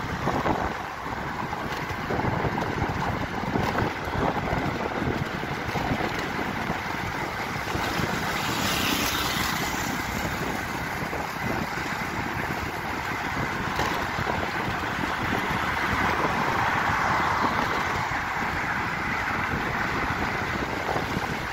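Steady wind rush and road noise from riding in a moving car, with wind buffeting the microphone and a brief louder hiss about eight seconds in.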